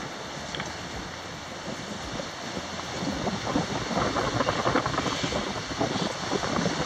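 Sea water rushing and splashing along the bow of a sailing yacht under way, with wind on the microphone. The splashing grows louder about three seconds in.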